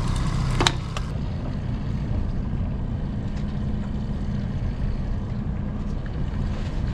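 Boat's outboard motor running steadily under way, a low rumble with a faint steady hum. A single sharp click about half a second in.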